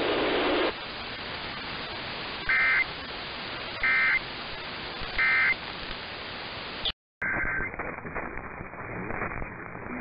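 Emergency Alert System end-of-message code received over AM radio: three short identical bursts of warbling data tones, about 1.3 seconds apart, over a steady static hiss. About seven seconds in the audio drops out for a moment and a duller static hiss from another AM receiver follows.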